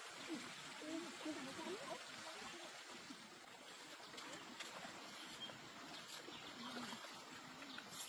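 Faint children's voices, mostly in the first two seconds, over a steady hiss of running stream water.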